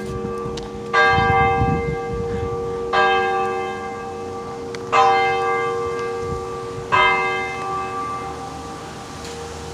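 A large bell tolling the same note four times, one stroke every two seconds, each stroke ringing on and fading slowly into the next.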